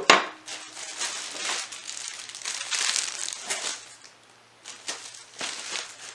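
Packing material around flat-pack dresser parts being handled: irregular crinkling and rustling, with a sharp knock at the start and a short pause about four seconds in.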